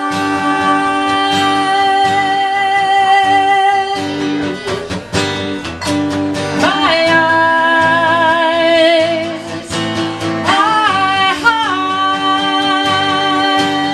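Live acoustic guitar strumming under a woman's voice singing three long held notes without words, each starting with a scoop up in pitch, the middle one with vibrato.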